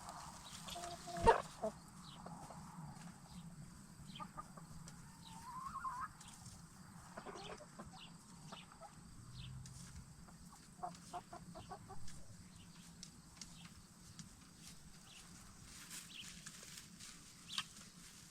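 A small flock of Black Star and Bielefelder hens clucking softly with short, scattered calls as they settle in to roost, one call rising in pitch partway through. A sudden sharp knock about a second in is the loudest sound.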